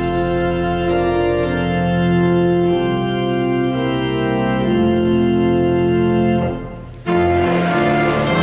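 Organ playing a hymn in sustained chords that change every second or so. The sound dips briefly about six and a half seconds in, then the next phrase comes in abruptly.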